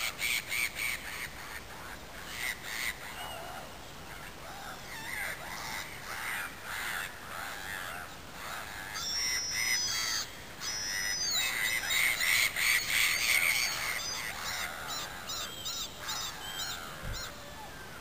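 Gulls calling, many short harsh cries repeated over and over, coming thickest a little past the middle. A few thin, high whistled notes rise and fall among them in the middle.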